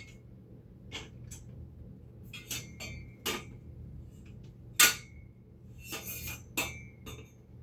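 Metal hardware clinking and tapping as a bolt and washer are fitted through the steel frame of a miter saw stand: a string of sharp clinks, some with a short ring, the loudest about five seconds in.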